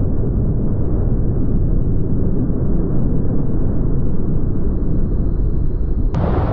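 Loud, dull, steady rumble of rushing water and air against a GoPro in its waterproof housing while surfing. About six seconds in it turns abruptly brighter and hissier.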